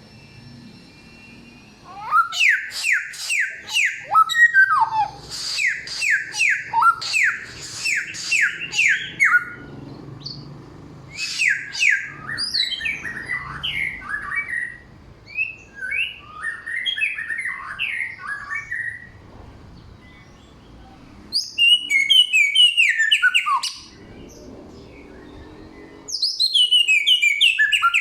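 A caged samyong songbird singing loudly: fast series of quick downward-sweeping whistled notes, changing from phrase to phrase, in bursts broken by a few short pauses.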